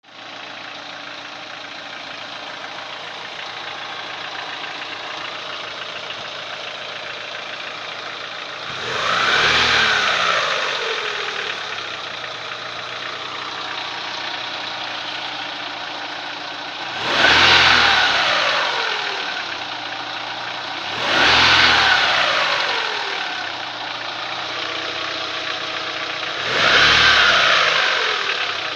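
Daewoo Lanos 1.6 four-cylinder engine idling, revved briefly four times, each rev rising and falling back to idle. It carries a knock whose cause is unknown.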